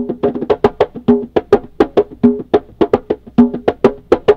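Hide-headed hand drum struck with bare hands in a fast, steady rhythm, about five or six sharp strokes a second, the strokes ringing at a few different pitches.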